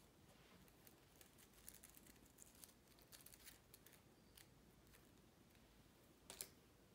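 Faint rustling and small crinkly ticks of hands handling small paper equation slips and a mesh drawstring bag, with one louder rustle a little after six seconds in.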